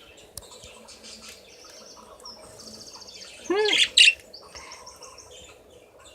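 Two caged pet birds chirping and twittering to each other in soft, quick trills, with one loud call rising and falling in pitch about three and a half seconds in.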